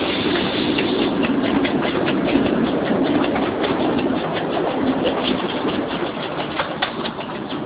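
15-inch gauge miniature railway locomotive Sutton Flyer running along the track during a run-round, its engine running steadily while its wheels click rapidly over rail joints and points. The sound eases slightly near the end.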